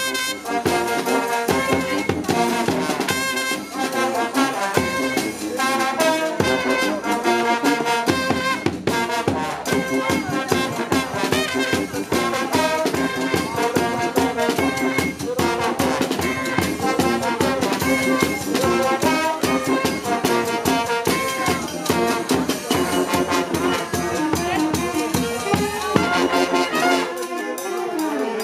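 Live street brass band (fanfare) playing a tune: trumpets, saxophones and trombone together over a bass drum beat.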